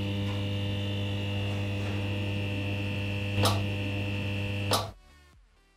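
Electric hum of a neon sign, as a logo sound effect: a steady hum with a thin high whine over it, crackling briefly about three and a half seconds in and again near the end, then cutting off.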